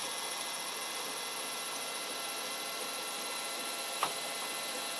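Protomaker Black Sprint FDM 3D printer running during its final layers: a steady whir and hum of its fans and electronics with faint steady tones, and one short click about four seconds in.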